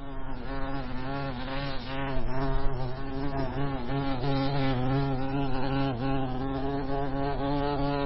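Honey bees buzzing in a steady hum whose pitch wavers slightly up and down.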